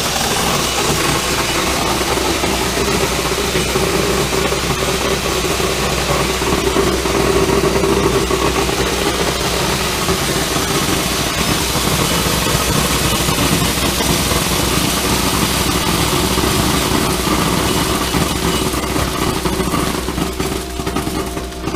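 Satake EVOLUTION optical colour sorter running full of popcorn: a steady dense rush and patter of kernels streaming down the chutes into the bucket, over a constant machine hum. The sound eases off near the end as the run finishes.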